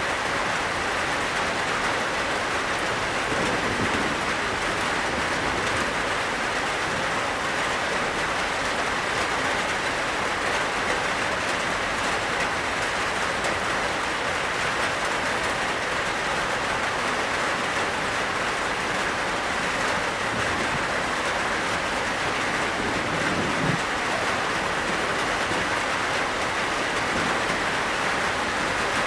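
Heavy rain with light hail falling steadily on a tin roof: a dense, even hiss flecked with many fine ticks of drops and hailstones striking the metal.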